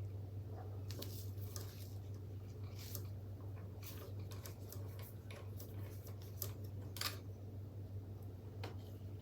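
Scattered small metallic clicks and clinks of a Pedro's Tutto chain tool being worked onto a bicycle chain, over a steady low hum.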